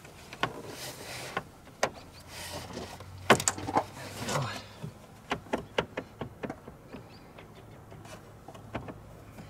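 Metal clicks, knocks and scraping from a car's windshield wiper linkage being worked by hand, its joints pushed and moved under the cowl. The loudest cluster of clicks and scraping comes about three to four and a half seconds in.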